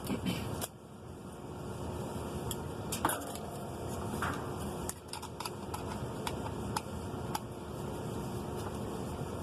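Scattered light clicks and taps of parts being handled while a new lid lock is fitted into a top-load washing machine, over a steady background hiss.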